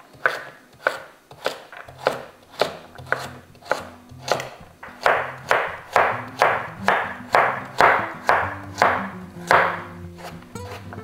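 Knife chopping a carrot on a cutting board, a steady rhythm of about two strokes a second.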